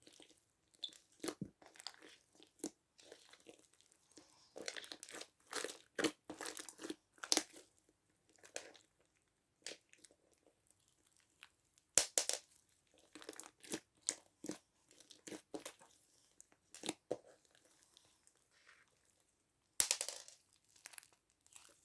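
Freshly fixed slime being squished, poked and stretched by hand: irregular soft crackles, pops and squelches with short pauses between them.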